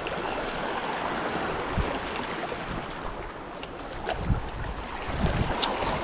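Ocean surf washing over shoreline rocks, a steady rush of water with a few short low thumps.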